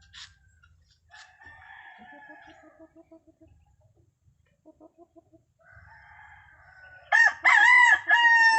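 A rooster crows loudly about seven seconds in, with fainter crowing before it. Short, evenly repeated low notes come in between the crows.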